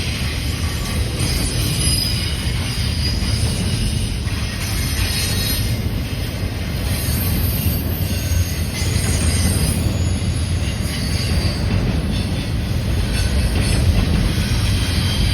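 CN freight train rolling past: a steady heavy rumble, with high-pitched wheel squeal coming and going.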